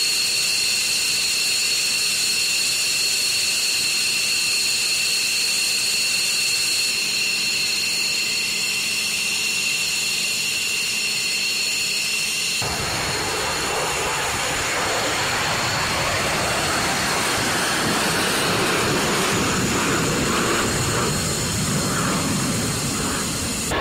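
Twin jet engines of an F-15E Strike Eagle running on the ground with a steady high-pitched whine over a hiss. About halfway through this cuts suddenly to the roar of jet engines at full power with afterburners lit.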